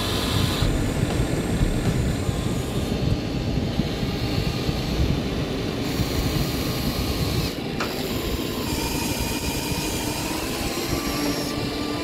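A toy vehicle's small electric motor running, with a grinding rattle. About seven and a half seconds in, the sound changes and drops slightly, and a thin steady whine comes in.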